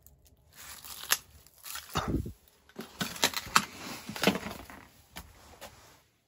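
Irregular footsteps crunching over rubble and broken plaster, a few steps louder than the rest.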